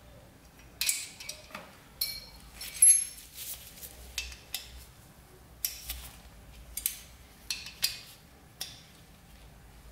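Steel Allen keys clicking and clinking against the timing belt idler and its bolts on a Ducati Desmodue engine, about a dozen sharp metallic clicks at uneven intervals, as the idler is levered to set belt tension and its bolts are snugged.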